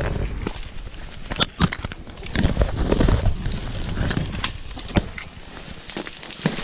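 Footsteps of people walking on a trail, with irregular crackles and snaps underfoot and scuffing steps.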